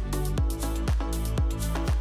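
Background electronic dance music with a steady kick-drum beat, about two beats a second, over a held bass line and ticking hi-hats.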